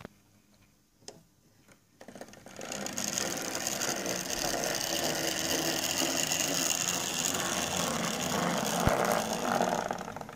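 Hornby model Class 31 diesel locomotive running on the layout's track: near silence for the first two seconds, then its small electric motor and gearing whir steadily with the wheels running on the rails, fading near the end.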